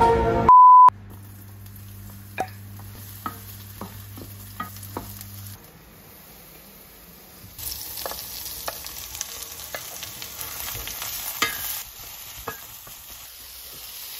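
Julienned peppers, onion and carrots stir-frying in a stainless steel pan, with a wooden spatula tapping and scraping against it. About halfway through a sizzle sets in as carrot sticks are slid in from a plate. Near the start there is one short, loud electronic beep, and a low steady hum runs through the first few seconds.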